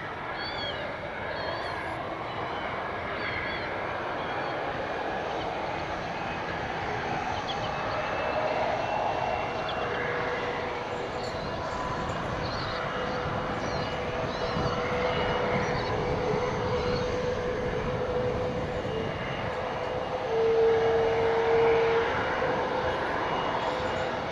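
Beechcraft King Air B200's twin Pratt & Whitney PT6A turboprops running at taxi power as the aircraft turns and lines up on the runway: a steady turbine whine over a propeller drone. The sound gradually grows louder, with a strong steady tone peaking about twenty seconds in.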